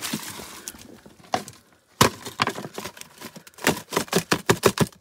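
A small container caked with wet sand being knocked again and again against the stone ground to empty out the silt cleared from a spring well. The knocks speed up into a quick run near the end.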